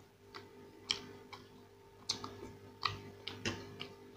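Chewing and eating mouth sounds, close to the microphone: a person chewing masala dosa with irregular wet lip smacks and sharp mouth clicks, unevenly spaced, several a second at times.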